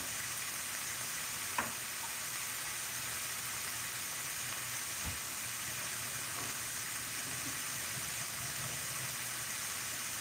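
Onions and saltfish frying in oil in a pan, sizzling steadily, with a faint click about one and a half seconds in and a low knock about five seconds in.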